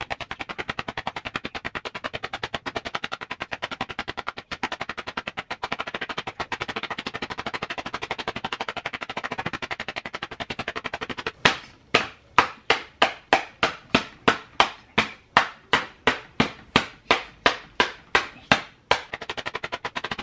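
Hand slapping a paper drawing over and over. For the first half the slaps come in a dense run, fast as machine-gun fire. About eleven seconds in they turn into separate, sharper slaps about three a second, and they speed up again near the end.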